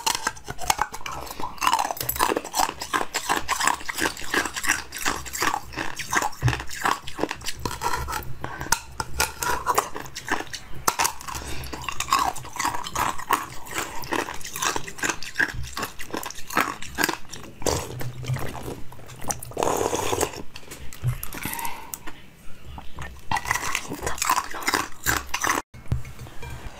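Close-miked eating sounds: repeated bites, crunching and wet chewing of a clear, blue-tinted food dome held to the mouth, in dense runs with short pauses.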